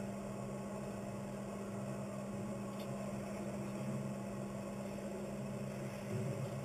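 Steady low mechanical hum with a faint hiss.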